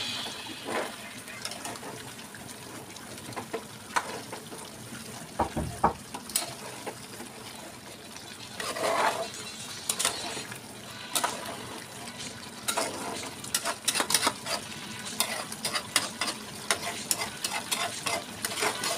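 Steel spoon stirring chicken and potato curry in a metal pot on a gas stove, scraping and clicking against the pot, with a few louder knocks, over the steady sizzle of the cooking curry.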